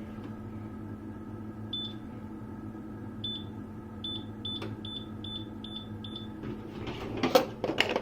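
Microwave oven keypad beeping: a string of eight short, high beeps, the last six in quick succession, over a steady electrical hum that stops about six seconds in. A few clattering knocks follow near the end.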